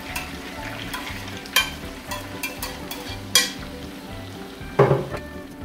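Shredded salt cod frying in hot olive oil in a clay cazuela: a steady sizzle as the raw fish is briefly sautéed. It is stirred with metal tongs, with two sharp clicks and a heavier knock near the end.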